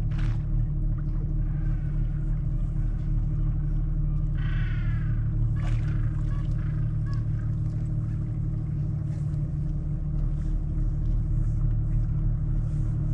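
Steady low drone of a boat's engine, with penguins calling over it; the clearest call, a harsh pitched one, comes about four seconds in.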